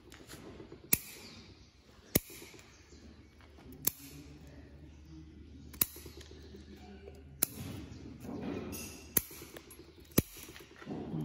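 Bonsai pruning scissors snipping through small twigs: seven sharp clicks, one every one to two seconds, with faint rustling of leaves between the cuts.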